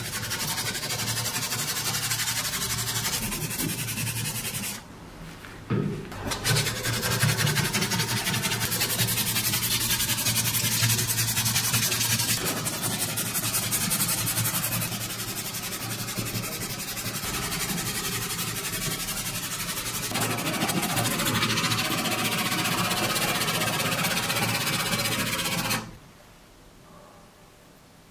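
Sandpaper strip being pulled back and forth around a wooden cleaver handle by hand: steady sanding noise, with a short break about five seconds in, stopping shortly before the end.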